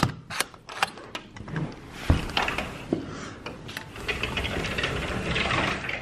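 Balcony door being opened: several sharp clicks of the latch and handle, then a quick rattling and clattering of the door in its frame as it is pushed open.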